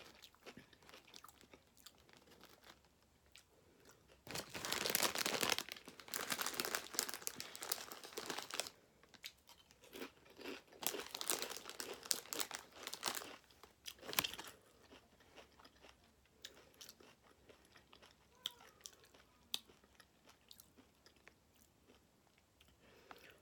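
A person chewing a Subway sandwich close to the microphone, with loud, crunchy chewing in two spells of a few seconds each. Then come quieter mouth sounds with a few small clicks.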